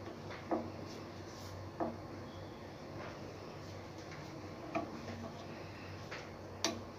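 Wooden spatula knocking against a steel kadhai of boiling milk: a few sharp taps at irregular intervals, the last one the loudest, over a steady low hum.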